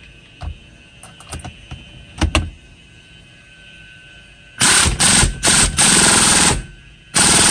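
Impact wrench hammering down the centre retaining bolt of a Hyundai Elantra steering wheel, in several quick bursts packed into about two seconds and then one more near the end, with a few light clicks of the tool and socket before it.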